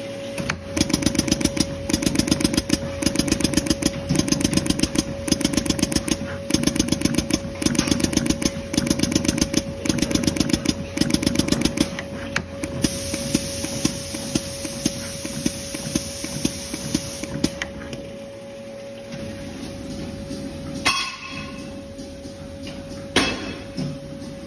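Automatic multi-nozzle soft-PVC dispensing machine running: a rapid clicking rattle in repeating bursts over a steady whine. After about twelve seconds it settles into a steadier, quieter hum. A couple of sharp knocks come near the end.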